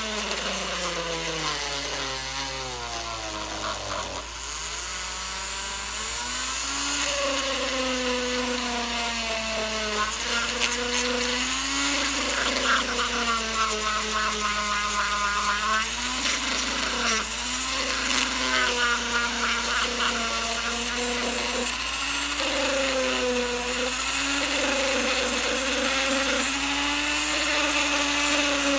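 Corded rotary tool spinning a small abrasive drum, sanding the rubber cushion of a snooker table pocket: a steady motor whine over a hissing grind. The whine's pitch falls over the first four seconds, then climbs back and keeps dipping and recovering as the drum bears on the rubber.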